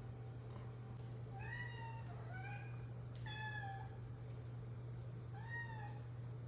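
A cat meowing four times. The short meows rise and fall in pitch and are faint, over a low steady hum.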